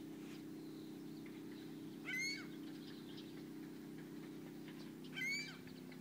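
Gull calling twice, short calls about three seconds apart, over a steady low hum.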